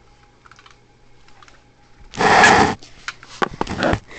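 Close handling noise: a loud rustling scrape about two seconds in, then a quick run of sharp clicks and knocks near the end.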